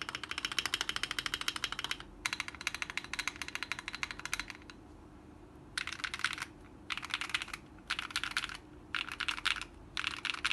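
Keychron Q1 mechanical keyboard, force-break modded, with lubed and filmed Akko Radiant Red linear switches and ASA-profile keycaps, being typed on fast. Two long runs of rapid keystrokes, a pause of about a second, then a string of short bursts of typing with brief gaps between them.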